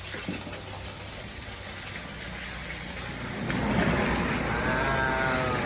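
Steady rushing hiss as the inflatable pool is filled, growing louder about three and a half seconds in. Near the end the baby monkey gives a short, wavering high call.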